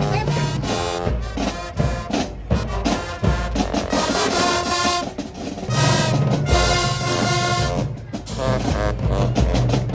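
High school marching band playing, brass and drums together, with a steady beat and a low bass line under the horns.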